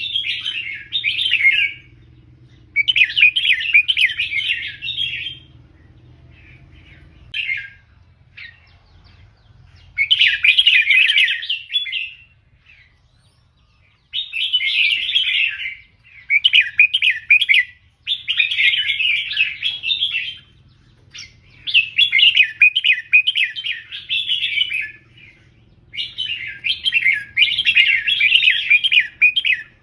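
Red-whiskered bulbul singing: bursts of quick, warbled chattering phrases, each lasting one to three seconds and repeated every few seconds with short pauses between them.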